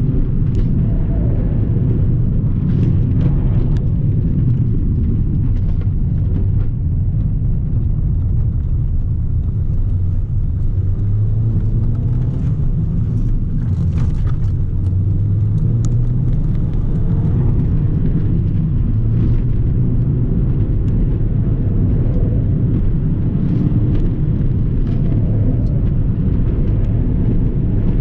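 Ford Fiesta ST mk7's 1.6-litre turbocharged four-cylinder engine heard from inside the cabin, driven hard on a timed run, its revs rising and falling over a heavy, steady road rumble.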